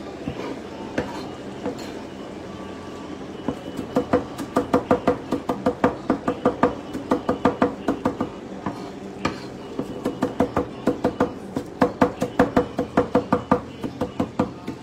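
Chef's knife chopping parsley on a wooden chopping board: quick, even knocks of the blade on the wood, about five a second. The knocks come in two long runs, after a few quieter seconds at the start and with a short break near the middle.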